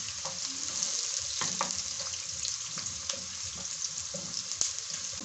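Onions frying in hot oil in a pan, a steady sizzle with fine crackling, and a few light knocks from a wooden spoon stirring them.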